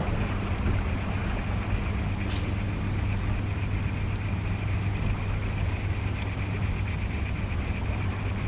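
Boat motor running with a steady low hum and a faint higher whine, over water and wind noise.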